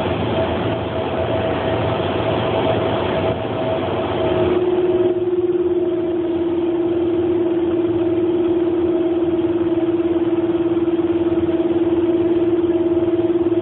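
Inside a moving train carriage: running noise that is louder for the first few seconds and then drops, with a steady mid-pitched hum throughout.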